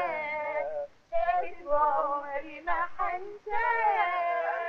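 A high voice singing a melody, with long held notes and a short break about a second in.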